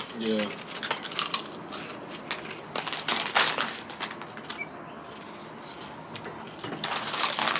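Potato chips crunching as people chew, mixed with the crinkle of a foil chip bag being handled and set down; a run of sharp crackles in the first half, quieter for a couple of seconds after the middle.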